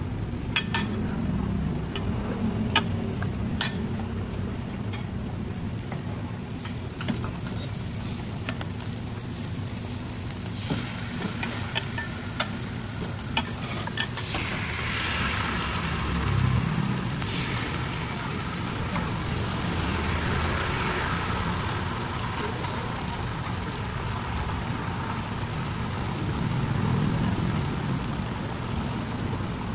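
Stinky tofu deep-frying in hot oil at a street stall: a steady sizzling hiss that swells for several seconds about halfway through. Sharp clicks come in the first few seconds and again shortly before the swell.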